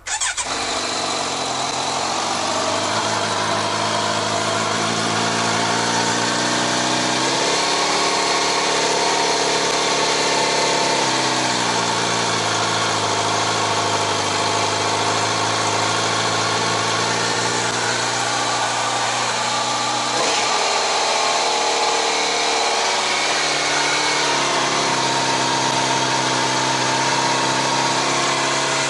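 Kawasaki Z900RS inline-four engine starting and idling through a newly fitted K-Factory CSR+ steel full exhaust, held at a high idle because it is cold. The idle speed sways a little, rising briefly about eight seconds in and dipping around twenty seconds in.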